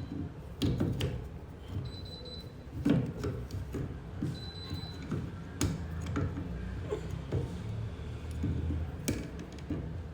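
Irregular clicks and knocks from hands working at a washing machine to open up its drain filter, over a steady low hum, with two short faint high beeps.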